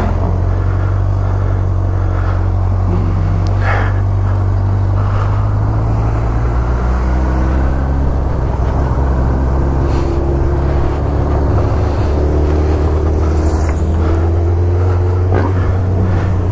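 Motorcycle engines running steadily at low revs, close to idle, with an even, unchanging low-pitched note.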